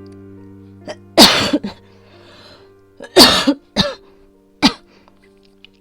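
A woman coughing from asthma: two loud, harsh coughs about two seconds apart, followed by two shorter coughs, over soft background music. She says she is on the verge of an asthma attack.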